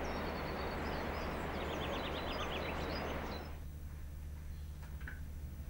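Small birds chirping over a steady outdoor background noise, with a quick rapid trill about two seconds in. The outdoor sound cuts off about three and a half seconds in, leaving a faint low hum.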